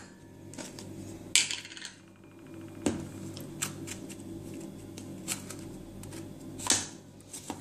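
About five light knocks and clinks of stainless steel bowls being handled on the counter, a second or so apart, over a faint steady low hum.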